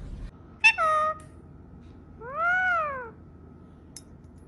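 Domestic cat meowing twice: a short call with a sharp start and falling pitch under a second in, then a longer meow that rises and falls about two seconds in.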